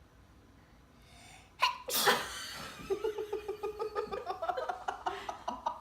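A young child sneezes once, suddenly and loudly, about a second and a half in. A run of quick, rhythmic laughter follows, about five pulses a second, until the sound cuts off.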